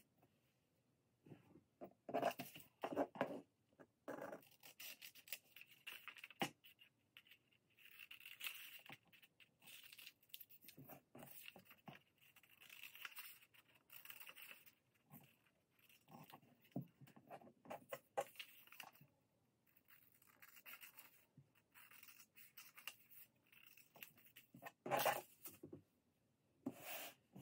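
Scissors cutting through paper pattern pieces: a faint, irregular run of snips with paper rustling and handling between the cuts.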